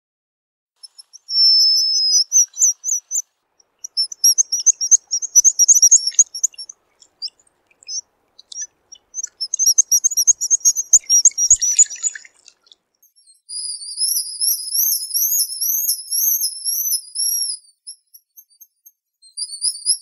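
Black guillemot calling in high, thin whistles: first a short whistle and bursts of rapid twittering trills, then a long wavering whistle that rises and falls about three times a second, breaking off briefly and starting again near the end.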